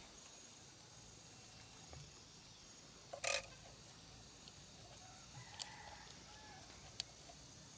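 A chicken's short, sharp squawk about three seconds in, over faint background with a few light clicks.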